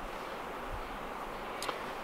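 Steady background hiss with no other sound, and one faint click near the end.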